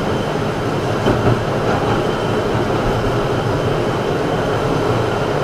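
Tram running along the street, heard from inside the passenger car: steady noise of wheels on rails, with two brief knocks about a second in.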